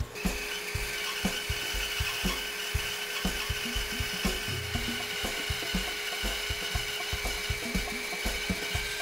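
Grizzly bandsaw with a 3/16-inch, 4-teeth-per-inch blade resawing a 2-inch hardwood board freehand along its length, giving a steady, continuous sawing sound.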